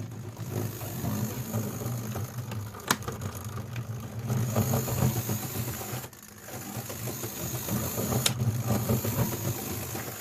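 Small electric motor of an old OO gauge model locomotive running on the track with a steady buzzing hum, its felt pads and gear freshly oiled. It cuts out briefly about six seconds in and then picks up again, with a few sharp clicks along the way.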